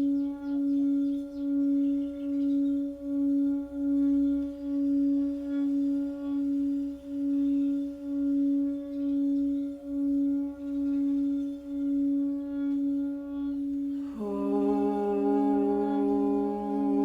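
Singing bowl ringing in a long steady tone with a slow, regular pulsing wobble. About fourteen seconds in, a second, lower sustained tone with a rich stack of overtones joins it.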